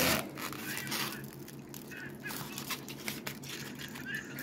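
Plastic wrap crinkling and styrofoam squeaking as a wrapped statue is worked out of its styrofoam packing block, in irregular rustles with a few short squeaks and a louder rustle right at the start.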